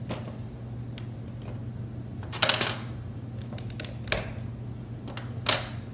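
LEGO bricks being pulled off a model car: a few sharp plastic clicks and snaps, the loudest about two and a half seconds in and again near the end, with a dull knock in between. A steady low hum runs underneath.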